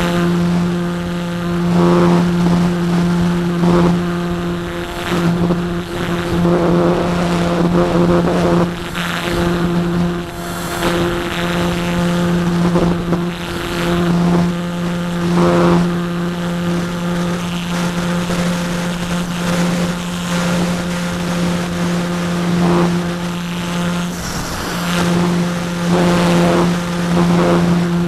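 Parkzone Radian's electric motor and propeller running at a steady pitch, heard from a camera on the plane, with wind rushing over the microphone in gusts. The hum briefly drops out a few times.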